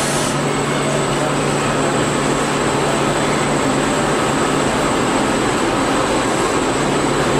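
PVC rotational molding machine running: a steady, loud mechanical drone with a constant low hum as the mold frame turns.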